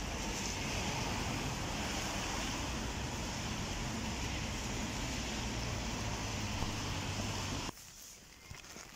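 Wind rumbling on the phone's microphone over steady rain, a continuous noisy hiss with a low buffeting rumble. It cuts off suddenly near the end.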